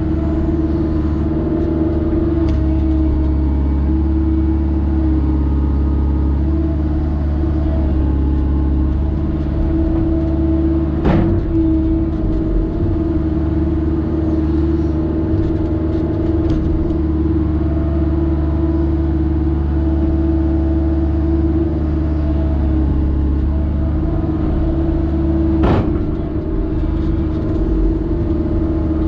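Kobelco excavator's diesel engine running steadily under load, heard from inside the cab as the bucket digs a trench. Two sharp knocks stand out, about eleven seconds in and again near the end.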